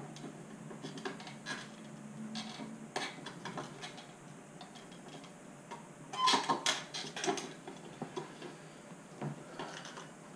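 Screwdriver prying at the plastic housing of an Audi S4 B7 headlight assembly: scattered plastic clicks and scrapes, with a burst of louder clicking about six seconds in. An inner retaining tab is holding the part in place.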